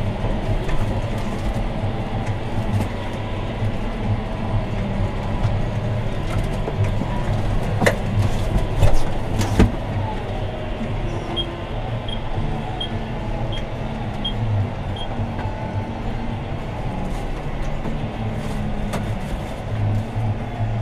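John Deere 6215R tractor's six-cylinder diesel engine running steadily under load, heard from inside the cab while ploughing. A few sharp knocks come near the middle, and just after them six short high beeps sound about half a second apart.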